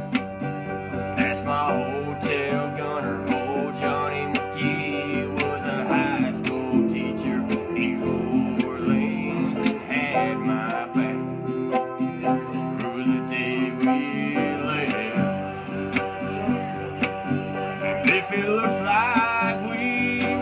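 Acoustic guitar strummed in a steady country rhythm, an instrumental break between sung verses. A sliding melody line rises over it a few times.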